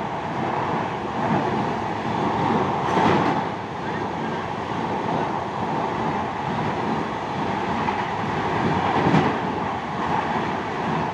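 Express train passing overhead on a railway bridge: a steady rumble and rush of coach wheels on the rails, swelling briefly about three seconds in and again near nine seconds.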